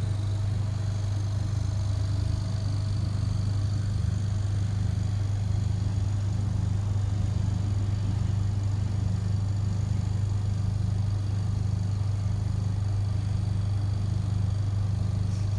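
Vacuum pump of a leak test chamber running steadily with an even motor hum, pulling the chamber down toward its set vacuum.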